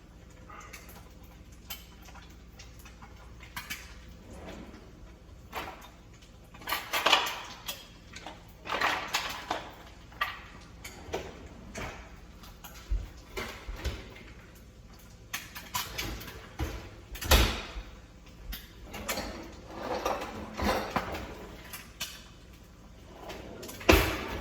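Kitchen drawers sliding open and shut and utensils clattering as someone rummages through them: a long run of irregular knocks and clinks, the loudest near the middle and near the end.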